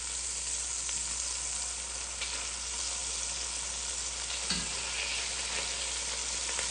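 Veal cubes sizzling as they hit hot olive oil in an enamelled cast-iron Dutch oven, browning over medium-high heat, with a couple of light taps of metal tongs against the pot.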